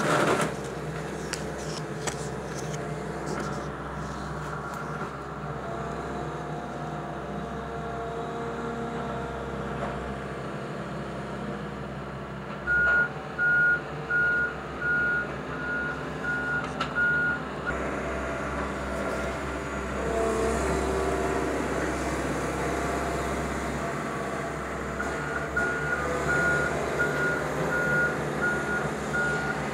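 Hydraulic excavator's diesel engine running steadily while it works, with its motion alarm beeping in a run of about five beeps a little under halfway through and again near the end. A few sharp cracks come near the start.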